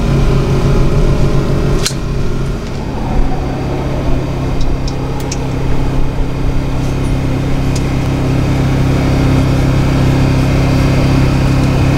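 A steady machine hum with a low pitched drone. A sharp click about two seconds in, after which the drone's tone changes, and a few faint clicks later on.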